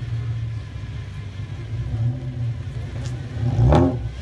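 A lowered Toyota sedan with a loud aftermarket exhaust creeps along with a deep, steady low rumble. About three and a half seconds in, the driver blips the throttle once in a short, sharp rev.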